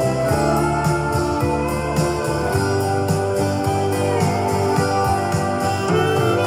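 Instrumental music with guitar, held chords, a few sliding notes and a steady beat of about four ticks a second.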